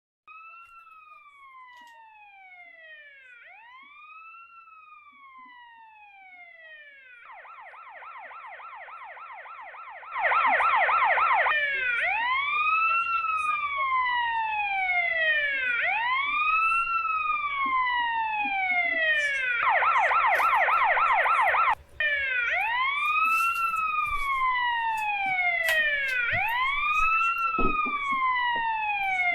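Australian police car siren switching between a slow wail that rises and falls about every three seconds and a rapid yelp. It starts fairly quiet, becomes much louder about ten seconds in with a low rumble underneath, and cuts out for a moment about two-thirds of the way through.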